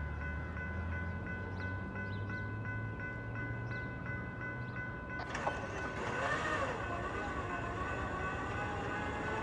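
Railroad grade-crossing warning bell ringing at an even pace of about three strokes a second as a train approaches. About halfway through there is a sharp click, and then the approaching locomotive's horn sounds as a steady chord in the distance.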